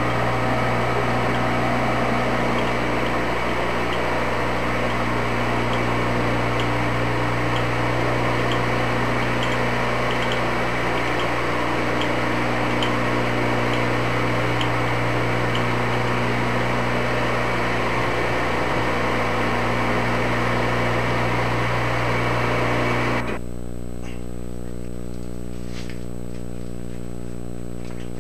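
Engine lathe running with a reamer cutting inside the bore of a spinning metal workpiece: a steady machine hum mixed with a hissing cutting noise. About 23 seconds in the cutting noise cuts off suddenly, leaving a quieter steady hum.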